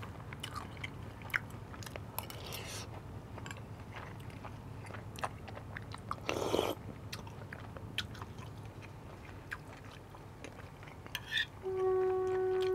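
Close-miked eating sounds: chewing, mouth noises and small clicks and scrapes of a metal spoon on a plate as rice with garlic-fried pork is eaten, with one louder noisy burst about six and a half seconds in. Near the end a loud steady tone with overtones starts up and holds.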